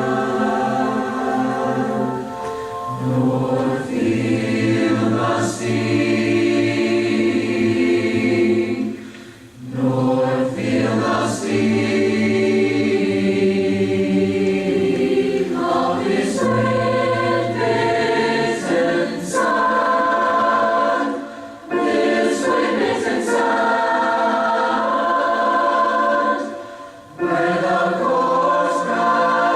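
A recorded choir singing a choral piece in sustained chords, pausing briefly between phrases about nine, twenty-one and twenty-seven seconds in.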